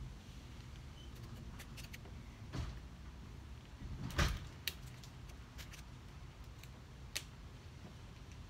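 Rubber bands being stretched over a watermelon and snapping against the rind: a few scattered snaps and clicks, the loudest about four seconds in.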